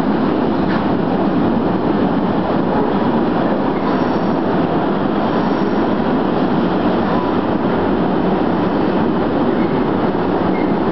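Steady rumble of a train hauled by a Class 66 diesel locomotive running through a station. A faint high wheel squeal comes in about four seconds in.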